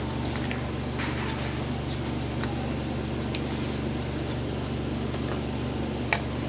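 A hobby knife scraping and cutting through dried glue around a loudspeaker's dust cap, heard as a few short sharp clicks, the loudest just after six seconds in, over a steady low hum.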